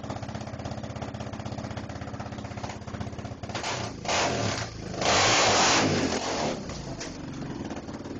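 Quad (ATV) engine idling with a steady throb, then revved up hard in two loud bursts around the middle before settling back to idle.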